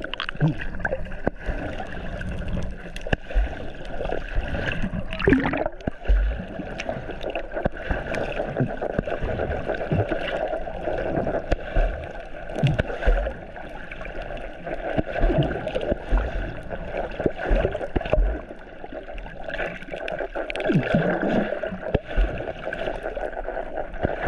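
Muffled underwater sound from a submerged action camera: water gurgling and sloshing over a steady hum, with frequent low knocks and bumps as the camera is moved through the water.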